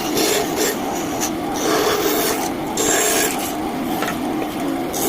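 Scheppach Basa 1 bandsaw running with its blade cutting a curve through mahogany, a steady hum under a cutting hiss that swells and eases several times as the wood is fed.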